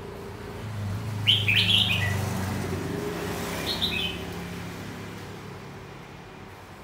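Caged red-whiskered bulbul singing two short song phrases, one about a second in and a shorter one near four seconds, over the low rumble of a passing vehicle that swells and fades.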